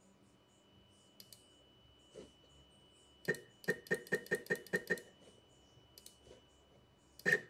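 Stepcraft M1000 CNC axis stepper motors buzzing in short bursts, about five a second, while the machine is jogged in small steps from the control software. There are about eight bursts in a row, then a second run starts near the end.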